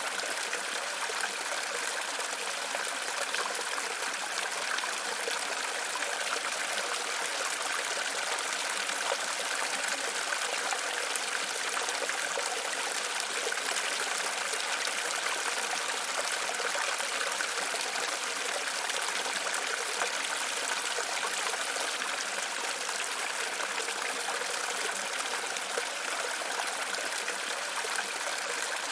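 Waterfall: steady rushing of falling water with no break or change.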